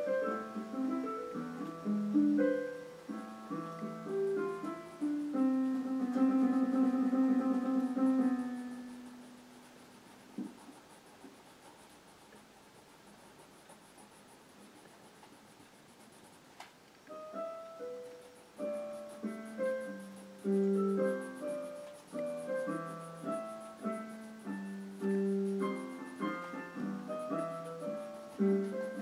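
Background piano music playing separate notes and chords. It dies away about nine seconds in, leaves a gap of several seconds, and starts again.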